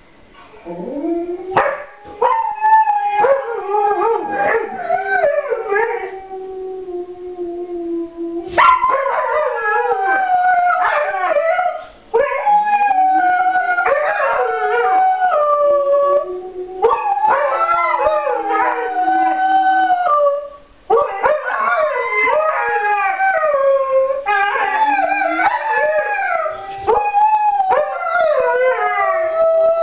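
Alaskan Malamutes howling together in long, wavering calls that overlap one another, with short pauses between bouts.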